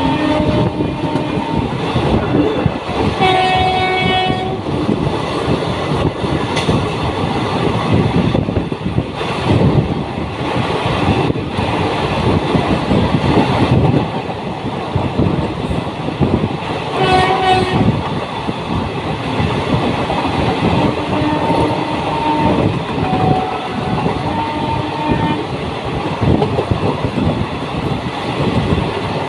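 Passenger train running at speed, heard from an open coach doorway: wheels rumbling and clattering on the rails with wind rushing past. A train horn sounds about four seconds in and again around seventeen seconds, each blast about a second long, with fainter horn tones several times later on.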